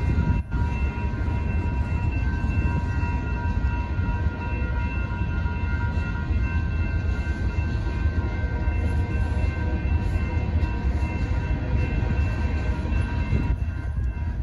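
Freight cars of a BNSF manifest train rolling through a grade crossing with a deep, steady rumble, while the crossing-signal bells ring continuously.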